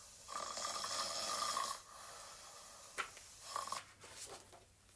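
A mock snore standing in for a sleeping bear: one long, breathy snore about a second and a half long, then a few fainter, shorter sounds.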